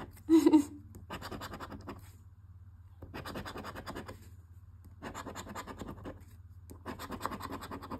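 The coating of a paper scratch-off lottery ticket being scraped off with a handheld scratcher, in about four rasping bursts of roughly a second each with short pauses between. A short loud sound comes about half a second in.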